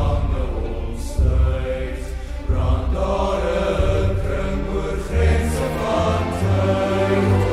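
A high-school choir singing the song's slow, sustained Afrikaans vocal lines over a produced accompaniment, with deep bass notes underneath.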